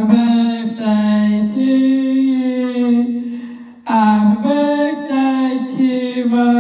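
A young woman singing alone into a handheld microphone, with long held notes in two phrases and a short break a little over three seconds in.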